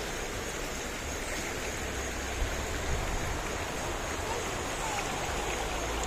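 Shallow river rushing over rocks: a steady wash of water noise.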